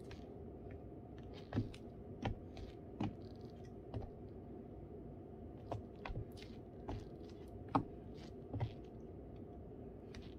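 High-heeled slingback sandals clicking on a hardwood floor as the wearer steps in place and walks: about nine sharp heel strikes at uneven spacing.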